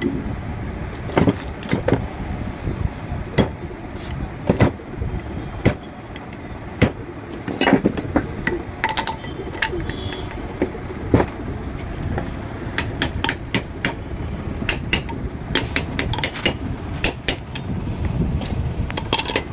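Irregular metallic clicks and knocks of starter-motor parts being handled and fitted onto the armature shaft at a metal workbench, over a steady low background rumble.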